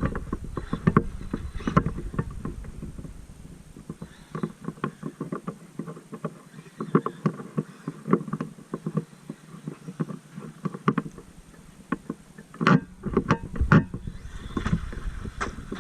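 Traxxas MAXX RC monster truck being driven over rough ground, its chassis and body giving irregular knocks and rattles as it bounces, with a few hard hits about 13 seconds in.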